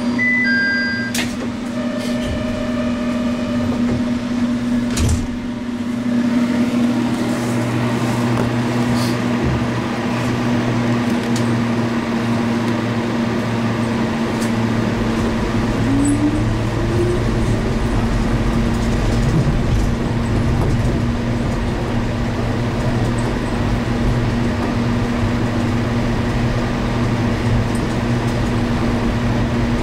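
Kansai Airport terminal shuttle train: a chime dies away with a couple of clicks, then the car pulls away and runs with a steady electric hum and a low rumble that builds, plus a brief rising whine about sixteen seconds in.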